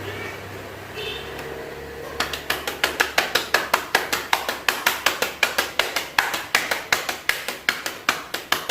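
Chest percussion for chest physiotherapy: cupped hands clapping rhythmically on a patient's chest wall to loosen phlegm, starting about two seconds in, at about four or five claps a second.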